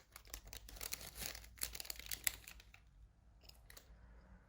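Paper or plastic packaging crinkling and rustling as it is handled: a run of irregular small crackles, thinning out after about three seconds.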